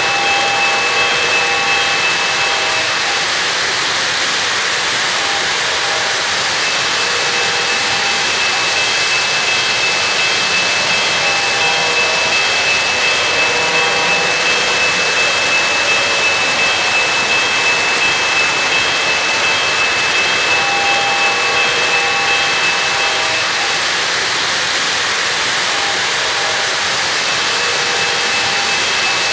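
O-gauge three-rail model trains running around the layout: a steady whir of electric motors and metal wheels rolling on the rails, with a thin high whine that drops out briefly twice.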